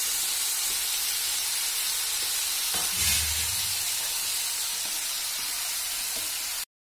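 Sautéed vegetables sizzling steadily in a non-stick wok as boiled wheat-flour macaroni is added and stirred in with a wooden spatula, with a soft low thump about three seconds in.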